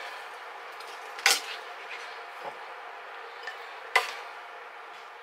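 A serving spoon scooping seared chicken pieces out of a frying pan, knocking sharply against the pan twice, about a second in and again near four seconds, over a steady sizzle from the hot pan.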